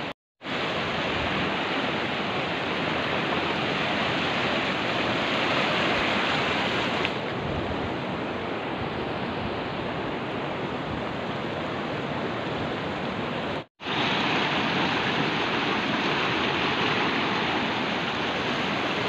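Steady rushing of a swollen, muddy river in flood, with water pouring through a causeway; the sound cuts out briefly twice.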